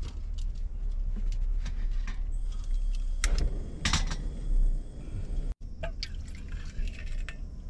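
Water being poured and sloshing in a cooking pot, with a few light clinks, over a steady low rumble.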